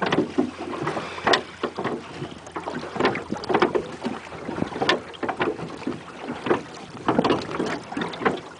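Irregular knocks and thuds in a small boat, over wind on the microphone.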